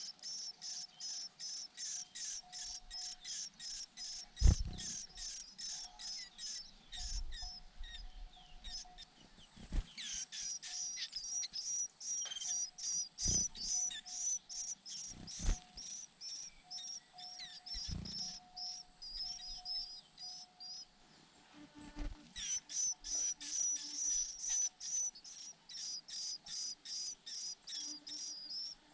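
White-eyes chirping rapidly and steadily, about three or four high chirps a second, with a short break about three-quarters of the way through. A few dull knocks are mixed in, the loudest about four and a half seconds in.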